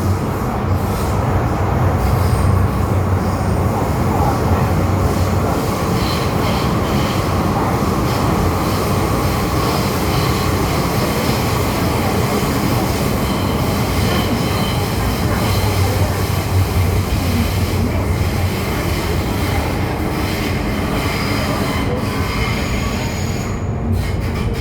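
An MTR M-Train electric multiple unit running at speed: a continuous loud rumble of wheels on rail with a steady low motor hum, and faint high-pitched wheel squeal coming and going.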